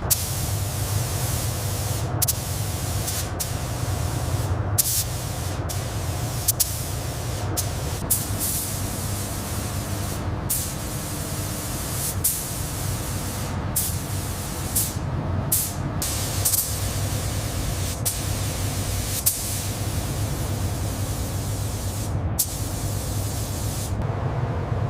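Spray gun hissing in long passes, cut by a dozen or more brief breaks where the trigger is let go, over a steady low hum.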